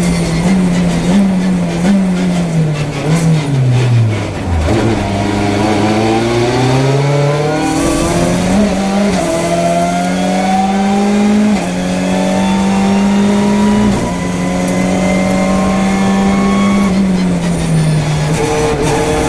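Hyundai i30N TCR race car's turbocharged 2.0-litre four-cylinder engine heard from inside the cockpit. It brakes hard from top speed through a run of blipped downshifts, the pitch falling in steps, then accelerates with the pitch climbing and two quick upshifts, and eases off near the end.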